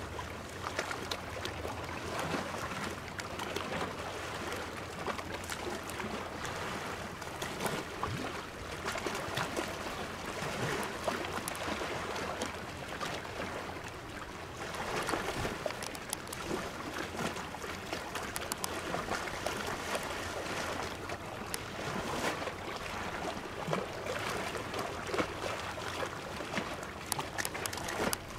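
Small sea waves lapping and splashing close by, a steady wash that swells and ebbs every few seconds, with scattered small clicks.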